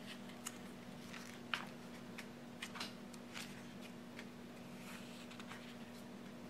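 Sticker book pages being turned and handled: scattered light paper rustles and soft crisp flicks, over a faint steady low hum.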